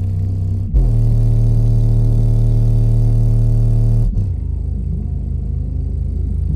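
Skar SDR subwoofer, driven by a cheap 12-volt amplifier, playing bass: a steady low note begins about a second in and holds until about four seconds, then gives way to a quieter, shifting bass line.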